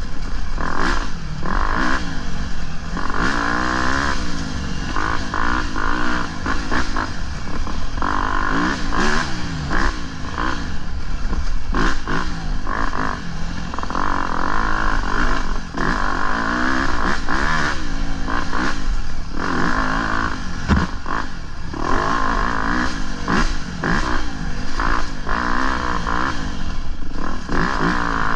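Dirt bike engine revving up and down over and over as it is ridden along a rough trail, with wind rumbling on the microphone and scattered knocks and clatter from the bike over rocky ground.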